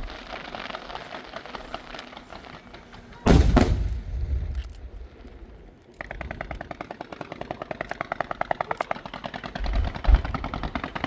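Aerial fireworks: a heavy shell burst about three seconds in, then from about six seconds a rapid, even string of sharp crackling reports at about ten a second, and another boom near the end.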